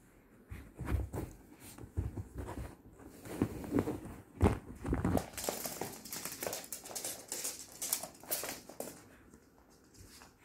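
Two small dogs, a Yorkshire terrier and a black smooth-coated dog, play-fighting on a hard floor: irregular scuffling, paw patter and knocks. The scuffling is busiest in the second half, with scratchy scrabbling.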